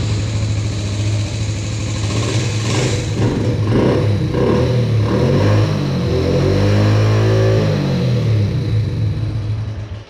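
Yamaha Badger 80 ATV's small four-stroke single-cylinder engine running, with the throttle worked so its pitch rises and falls. It sounds pretty good, running now that spark has been restored by bypassing the neutral safety switch.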